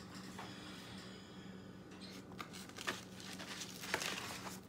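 Rustling and a few light knocks from a painted paper journal being handled and lifted, over a faint steady room hum.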